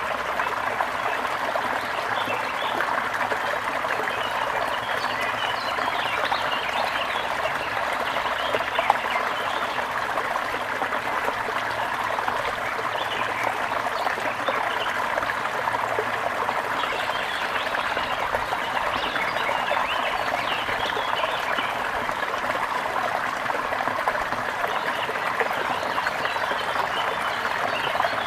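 A gentle river flowing steadily, an even rushing and trickling of water over stones.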